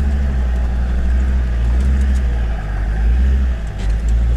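Off-road vehicle's engine and drivetrain droning steadily at low speed, heard from inside the cabin, with a few faint ticks near the end.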